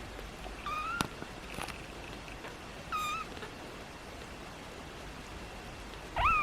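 A kitten with hiccups gives three short, high, squeaky peeps a few seconds apart, each one rising and then levelling off. A couple of soft clicks come with the first.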